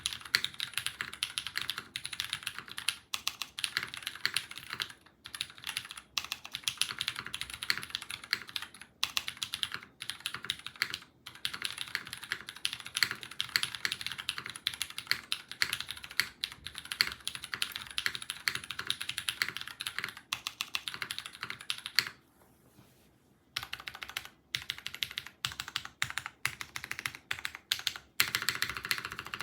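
Fast, continuous typing on a Noodle.Zip mechanical keyboard with Krytox-lubed Cherry MX Purple tactile switches in a top-mounted aluminium plate, under GMK keycaps. Rapid overlapping key clacks stop briefly about two-thirds of the way through, then resume.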